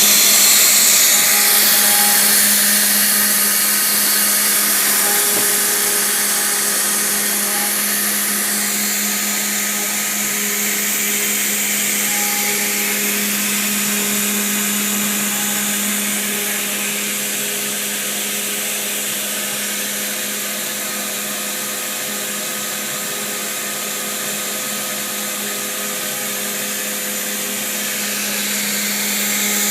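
Small home-built CNC router running as it carves into a rubber hockey puck: a steady motor hum under a bright hiss, with short higher tones coming and going as the machine moves.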